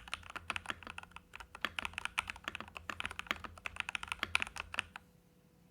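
Typing on a VortexSeries GT-8 mechanical keyboard fitted with lubed Jwick Black linear switches and PBT keycaps: a fast, uneven run of key clacks that stops about five seconds in.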